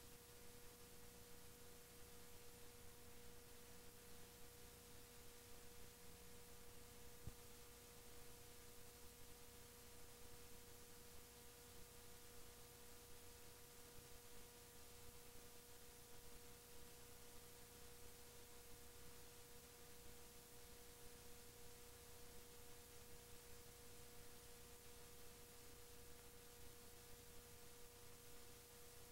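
Near silence: a faint, steady electrical hum with a pitched tone and hiss, the noise of a VCR playing a blank stretch of videotape. One faint click about seven seconds in.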